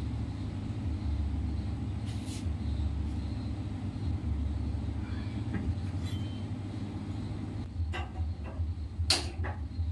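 A steady low hum, a light knock about two seconds in as a pan is set down, then a quick run of sharp clicks in the last two seconds as a gas stove burner is lit.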